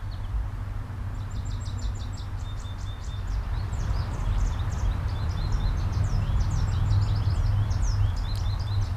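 Small birds chirping and twittering in quick runs of high notes, starting about a second in, over a steady low rumble.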